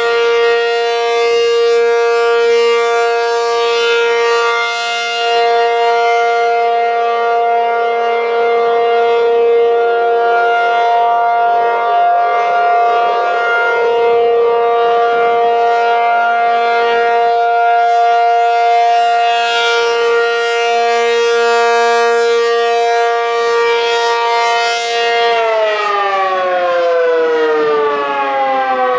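ACA P-50 tornado siren sounding a loud steady tone, the pitch held level. About 25 seconds in, the pitch starts to fall steadily as the siren winds down at the end of its test cycle.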